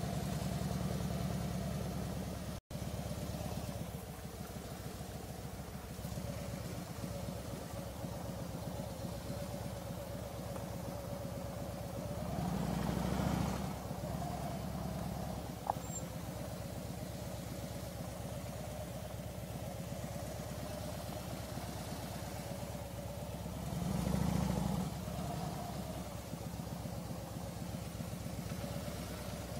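Harley-Davidson air-cooled 45-degree V-twin running at low speed with a low, even pulse. It swells louder briefly twice, around 13 and 24 seconds in, as the throttle opens.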